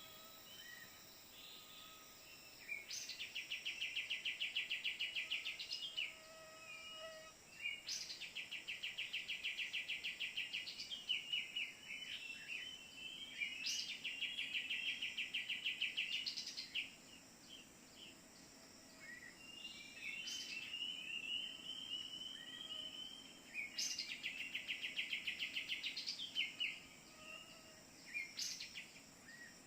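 Bird-lure call of the kapas tembak bulbul played from a phone: rapid pulsed, buzzy trills about three seconds long, repeating every few seconds, with softer chirps between them.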